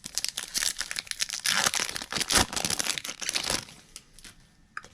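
A wrapper of a Topps baseball card pack crinkling and tearing as it is ripped open, a dense crackle for about three and a half seconds, loudest in the middle, then dying away to a few small clicks.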